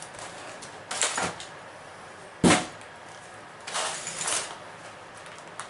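Hands handling and opening toy-figure packaging on a table: short rustles about a second in and again around four seconds, and one sharp knock about two and a half seconds in as something is set down.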